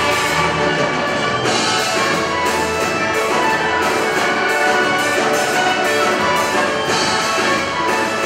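Youth orchestra of violins, clarinets, saxophones, trumpets and trombones playing a praise song, with the brass prominent.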